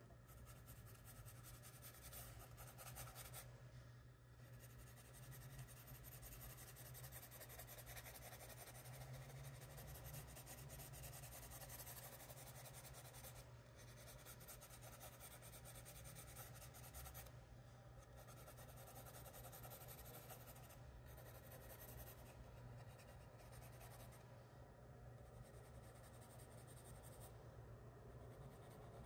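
Faint scratching of a charcoal pencil on sketchbook paper, in quick short hatching strokes with brief pauses, over a steady low hum.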